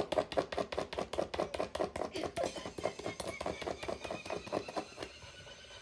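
Siberian husky scratching herself with a hind leg: a rapid, even thumping and rattling of her harness, about six strokes a second, which stops about five seconds in.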